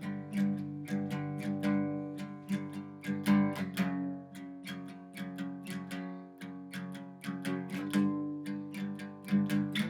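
Background music: a guitar plucking chords in a steady rhythm.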